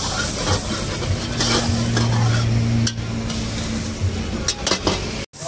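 A metal ladle scrapes and stirs in a steel wok as the food in it sizzles, with a few sharp metal clanks near the end.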